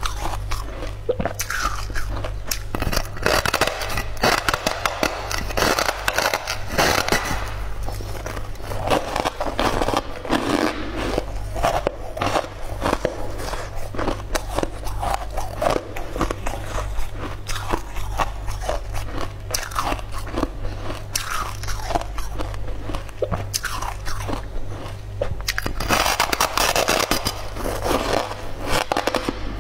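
Close-miked biting and crunching of a brittle, crystalline purple food slab, with dense sharp crackles and chewing all through. A steady low hum runs underneath.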